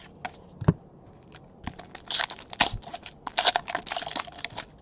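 Foil wrapper of a Donruss baseball card pack crinkling and tearing as it is ripped open, after a couple of light taps.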